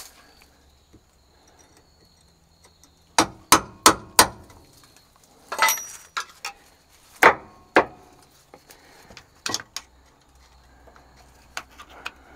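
Hammer blows knocking at a cab jack cylinder pin on a semi truck: four quick strikes about three seconds in, then single strikes spread over the next several seconds, one with a short ring, the last ones fainter.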